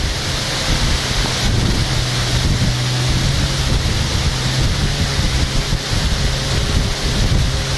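Wind buffeting the microphone as a steady rushing noise, with a low steady hum underneath that is strongest in the first half.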